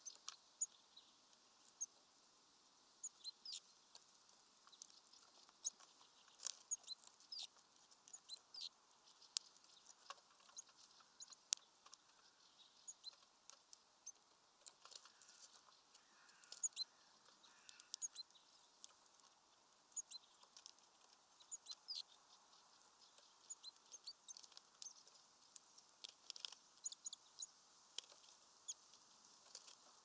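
Great tits pecking and hammering at peanuts through a mesh feeder bag: irregular sharp taps and clicks, several a second in clusters, with short high chirps between them.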